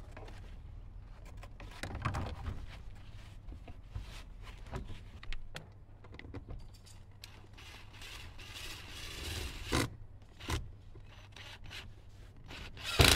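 Scraping and clicking as an eaves support tray is shifted into place at the roof edge, with a cordless drill driving screws into the tray in short runs. A neighbour's lawnmower runs steadily in the background.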